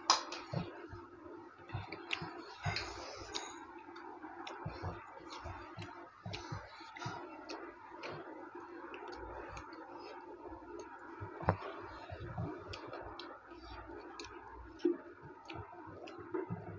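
Eating sounds: two people chewing chicken curry and rice eaten by hand, with many small irregular clicks and smacks of mouths and fingers over a low steady hum.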